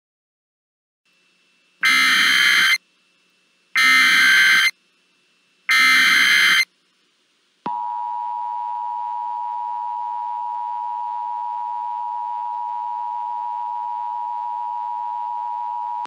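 Emergency Alert System broadcast tones: three one-second bursts of the digital SAME header data, about a second apart. About seven and a half seconds in, the steady two-tone EAS attention signal starts and holds unchanged for about eight seconds, announcing the alert that follows.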